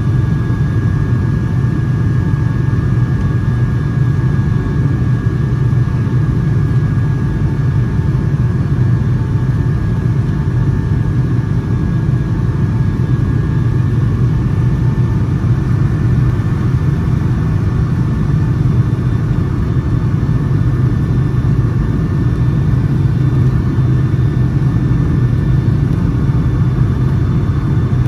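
Steady cabin drone of a Boeing 757-200 in flight: a loud, even rumble of engine and airflow noise with a faint steady whine from the engines.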